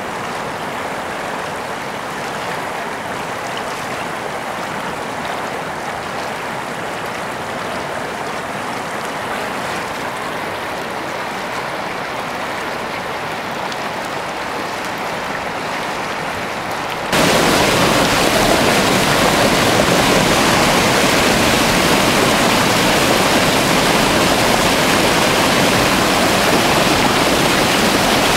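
Shallow stream rushing steadily over rocks. About two-thirds of the way in the sound jumps abruptly to a louder, fuller rush of water from a small white-water cascade.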